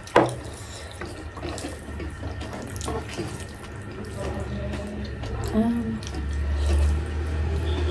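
Close-miked eating sounds: fingers squishing and mixing rice on steel plates, with wet chewing and lip smacks as small clicks, and a couple of short hums in the middle. A low steady hum runs underneath and swells near the end.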